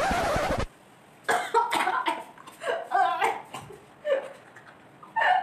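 A sudden loud burst of rushing noise, under a second long. After it a girl coughs and sputters in short fits, as if choking on a fizzy drink, mixed with laughter.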